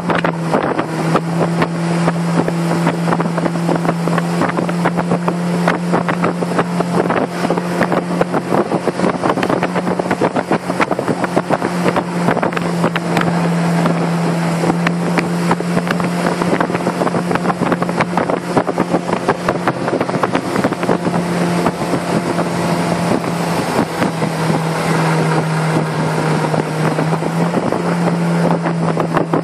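Small boat motor driving an aluminium jon boat at a steady cruising speed, one constant engine drone that holds its pitch.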